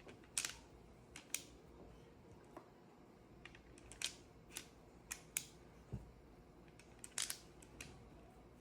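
A dozen or so short, sharp mechanical clicks at irregular intervals, from a replica pistol's mechanism being handled.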